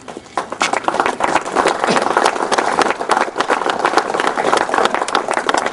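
A crowd applauding, a dense patter of hand claps that starts about half a second in and keeps going.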